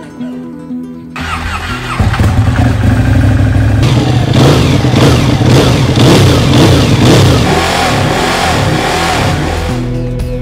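Ducati Panigale motorcycle engine firing up about a second in, then revved several times, its pitch rising and falling, loud. Background music comes back in near the end.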